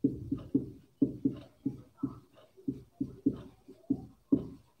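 Marker writing on a whiteboard: a string of short, irregular taps and strokes, a few each second.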